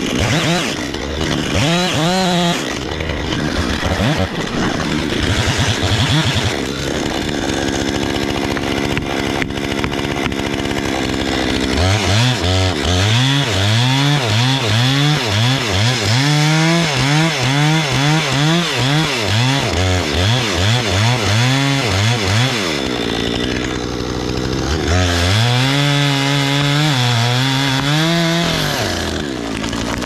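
Two-stroke gas chainsaw cutting through a standing tree trunk on the felling back cut. The engine runs hard in the wood at first, then from about midway its pitch surges up and down again and again as the cut goes on.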